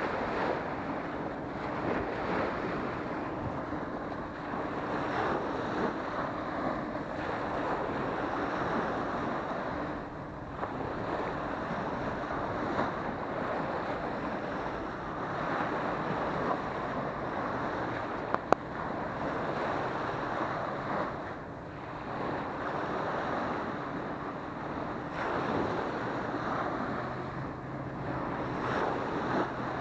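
Small surf breaking and washing up a sandy beach, swelling and easing every few seconds, with wind buffeting the microphone. One sharp click about two-thirds of the way through.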